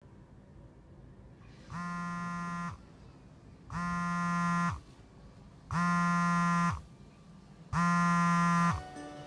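Mobile phone vibrating on a wooden tabletop: four buzzes of about a second each, two seconds apart, each one spinning up and winding down, the case rattling against the wood.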